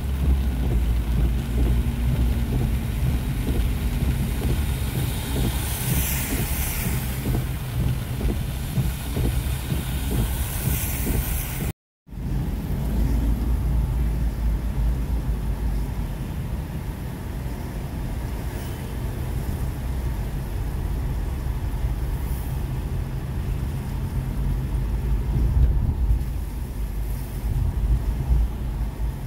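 A car driving on a rain-wet street, heard from inside the cabin: a steady low engine and road rumble with the hiss of tyres on wet tarmac. The hiss swells briefly about six and ten seconds in. The sound drops out completely for a moment just before twelve seconds in.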